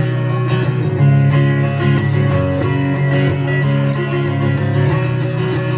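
Instrumental intro of a country song: strummed guitars with a steady beat of percussion.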